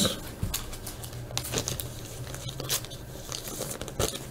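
Trading cards and torn foil pack wrappers being handled, with scattered soft crinkles and clicks.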